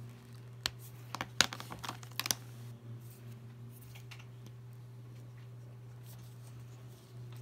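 Sharp plastic clicks and knocks from alcohol markers and their caps being handled, clustered in the first couple of seconds with a few fainter ones later, over a steady low hum.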